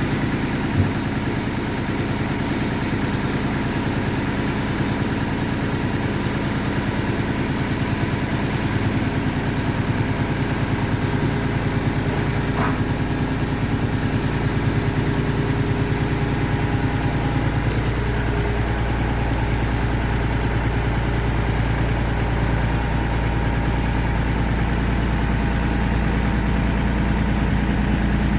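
An engine running steadily at idle, with a low, even hum throughout.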